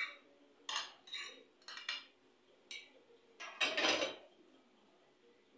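Cooking utensils clinking and scraping against a bowl and a metal kadai as onion paste is scraped out into the pan: a string of short clinks, then a longer, louder scrape a little before the four-second mark.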